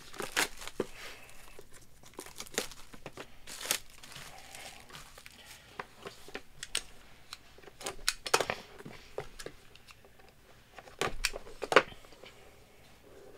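Plastic shrink wrap being picked at, torn and crumpled off a sealed trading-card box, in scattered crinkles and sharp crackles.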